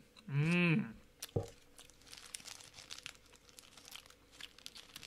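A man's wordless "mmm" hum, rising then falling in pitch, while eating a crunchy snack. A sharp click follows, then soft crinkling and crunching of the snack and its wrapper.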